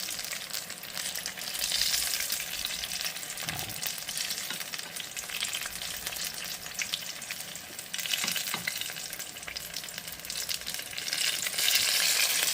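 Turon (banana and jackfruit spring rolls) frying in hot oil: a steady sizzle and crackle that grows louder near the end.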